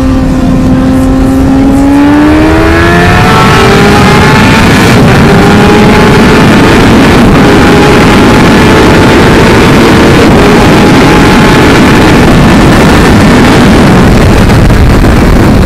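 Suzuki GSX-R 750's inline-four engine pulling up through the revs over the first few seconds, then holding a steady high speed. Loud wind rush sits over it on the bike-mounted microphone.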